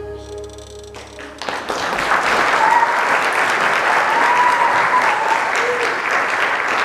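The last held notes of music fade out. About a second and a half in, an audience breaks into applause, with a few voices cheering over it.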